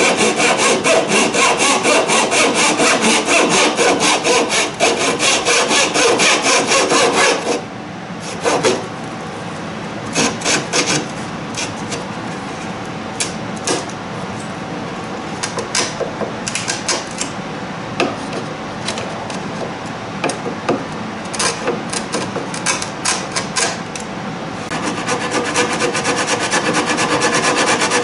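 Hand tools scraping and sanding the wooden deck of a cedar-strip kayak model: fast, steady scraping strokes for about seven seconds, then slower, separate strokes of a steel card scraper, and in the last few seconds steady back-and-forth sanding with a wooden sanding block.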